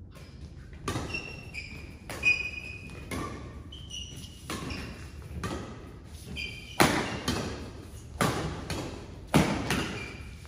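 Doubles badminton rally: rackets strike the shuttlecock in a quick series of sharp hits, about one a second, echoing in a large hall. The hardest hits come in the last few seconds. Short high squeaks are heard between the hits.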